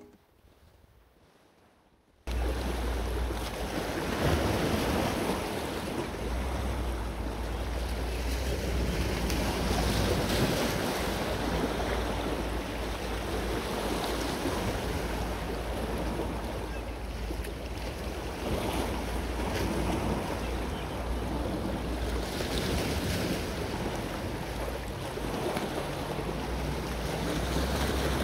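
Sea surf washing on the shore, with wind rumbling on the microphone, starting suddenly about two seconds in after a short near-silent gap.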